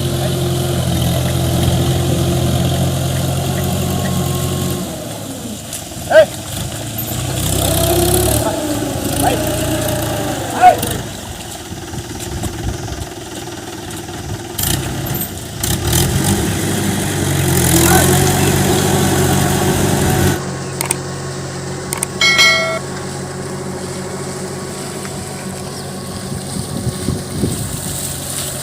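A motor engine running at a steady pace. It drops away about five seconds in and comes back for a few seconds later on. There are a couple of sharp knocks, and a short high-pitched call about three-quarters of the way through.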